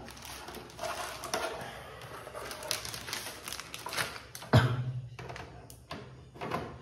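Handling noise: rustling with many small clicks and taps, then one heavy thump about four and a half seconds in, followed by a few more clicks.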